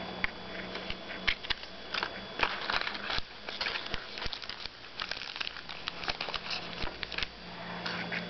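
Reese peanut butter cup candy wrapper crinkling and crackling as it is handled and unfolded flat, in irregular clusters of sharp crackles.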